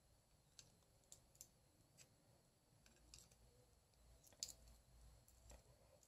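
Near silence broken by faint, scattered clicks of small metal multitool parts and tools being handled, about seven in all, the loudest about four and a half seconds in.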